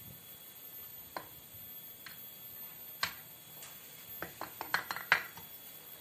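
Light metallic clicks and clinks of a diesel engine piston, rings fitted, being handled and slid into a new cylinder liner for a test fit: a few single clicks, then a quick cluster of them about four to five seconds in.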